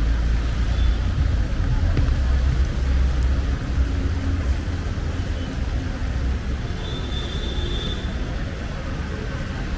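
Traffic on a wet city main road: engines rumbling, loudest in the first half, over a steady hiss of tyres on wet asphalt. A short high squeal about seven seconds in.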